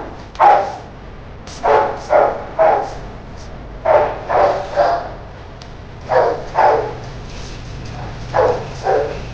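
Shelter dogs barking in short barks, mostly in twos and threes, about a dozen in all.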